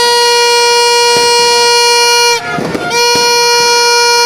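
A horn sounding two long, steady blasts at one unchanging pitch, with a short gap about two and a half seconds in.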